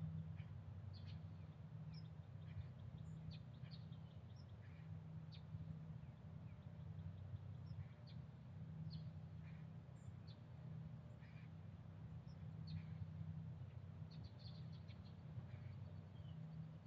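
Faint, scattered short high-pitched bird calls, a few every second or two, over a steady low hum.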